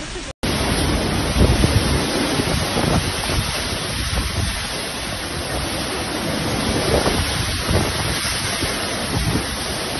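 Strong gusting wind of a monsoon storm buffeting the microphone, a heavy steady rush with surging low rumbles. The sound cuts out for an instant just after the start.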